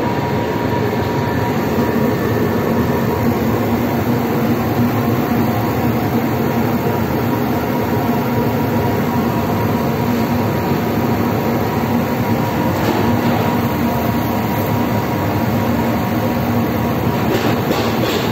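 Fabric laser cutting machine running with a steady, loud mechanical drone and a low hum, even throughout.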